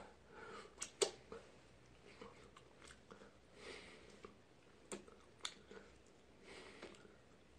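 Faint chewing and wet mouth clicks of a man eating with his fingers and licking them. There are a few soft, scattered smacks, the loudest about a second in.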